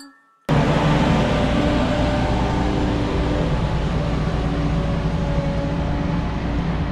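Heavy farm machinery with a diesel engine running steadily. It cuts in suddenly about half a second in, a broad rushing noise with a deep rumble and a faint steady hum.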